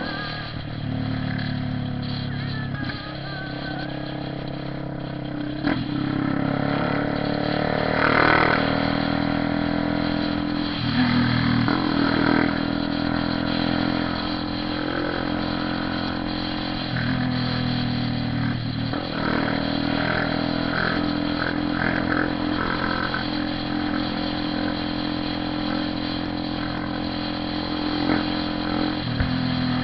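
Honda CB 300R single-cylinder motorcycle engine and exhaust running while riding, the revs rising and falling several times as it accelerates and shifts.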